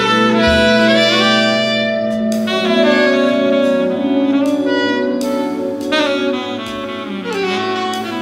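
Live jazz band playing: saxophones sounding long held notes and gliding runs over electric guitar, several tones layered at once.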